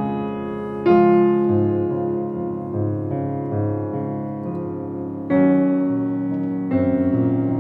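Background music: slow, sustained piano chords, with a new chord struck about a second in, another after about five seconds and another near the end.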